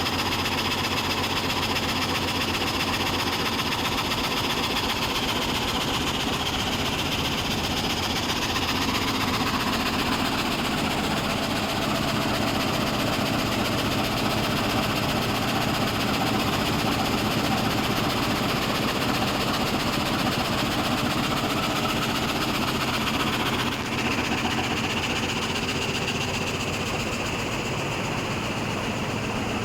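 A frame saw machine running steadily, its reciprocating saw blades cutting through timber with a fast, even rhythm under a constant motor hum. Near the end there is a brief dip, and the high hiss fades.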